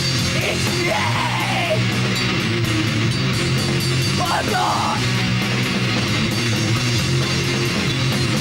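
A heavy band playing live and loud: distorted electric guitars, bass and a drum kit, with cymbals ticking steadily. Two brief high sliding wails rise out of the mix, about one second in and again about four and a half seconds in.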